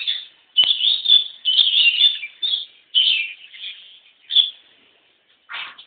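A small bird chirping close by in quick, loud bursts of short high chirps, with one harsher call near the end.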